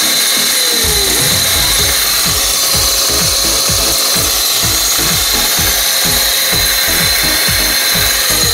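Homemade electric pruning saw, a small electric motor driving a chain to a small circular blade, running freely with no load after its push-button switch is pressed: a steady motor hum with a high whine.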